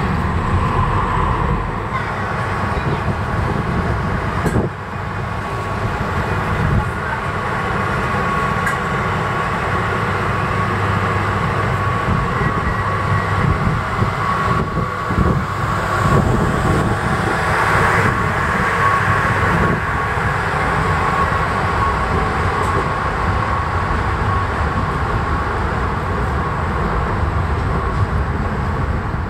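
MDmot 3017 diesel multiple unit running along the line: a steady mix of diesel engine and wheel-on-rail rumble, with a continuous whine.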